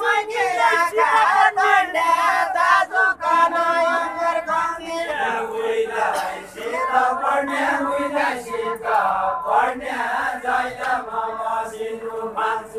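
A group of voices singing a Nepali deuda folk song together in long, drawn-out phrases.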